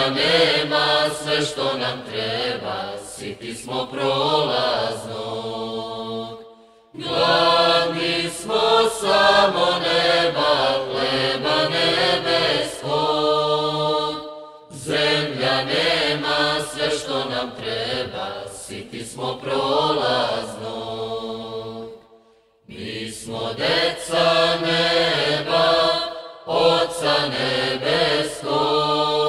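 Orthodox church chant: voices singing long, slow phrases, separated by brief pauses.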